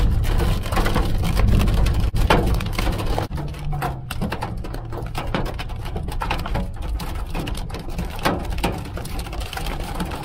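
Pea- to marble-sized hail striking the roof and body of a Jeep, heard from inside the cabin as a dense, irregular patter of sharp ticks. Under it runs a low vehicle rumble that drops back about three seconds in.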